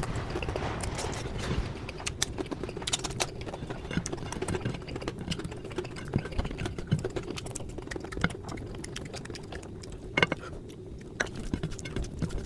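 Close-miked eating sounds of a person chewing, with many irregular wet clicks and smacks.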